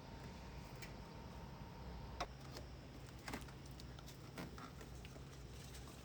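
A few faint, scattered clicks and taps over a low steady hum, about one a second in the middle of the stretch, like light handling or typing in a small room.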